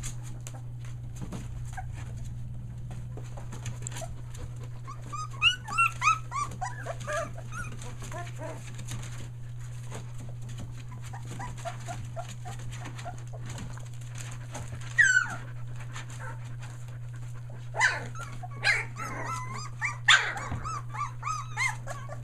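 A litter of three-week-old Australian Shepherd puppies whimpering in short, high-pitched calls that come in clusters. The loudest is a single falling squeal about fifteen seconds in, and more calls crowd together near the end, over a steady low hum.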